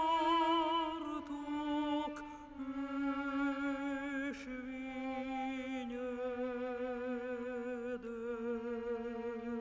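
Operatic soprano singing a slow lament, holding long notes with wide vibrato that step slowly downward in pitch.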